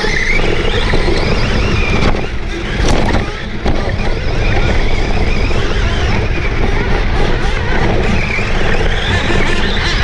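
Radio-controlled off-road car heard from on board as it races over dirt: its motor whines up and down in pitch with the throttle over a continuous rumble of tyres and gravel. A few knocks from bumps come between about two and three and a half seconds in.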